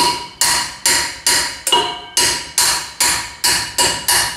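Hammer blows on a steel drift, driving a wheel bearing out of a motorcycle wheel hub: steady, even strikes a little over two a second, each with a short metallic ring.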